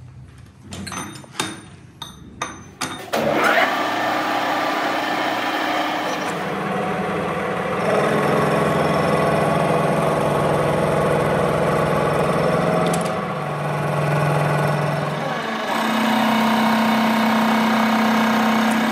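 A few sharp metal knocks, then a workshop machine starts up about three seconds in and runs steadily with a low hum that shifts in pitch a few times.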